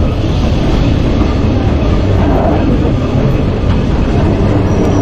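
Electric tram running on its rails, a steady loud rumble of wheels and car body. A thin high wheel squeal starts near the end.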